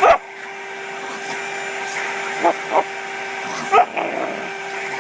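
A vacuum cleaner's motor running with a steady hum while boxer dogs bark at it: one sharp bark at the start, two quick barks about two and a half seconds in, and another about a second later.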